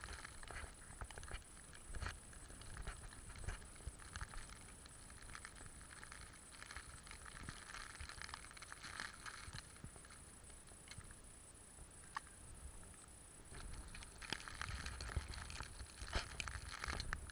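Faint, irregular crunching of footsteps in fresh wet snow, with low bumps of the camera being carried.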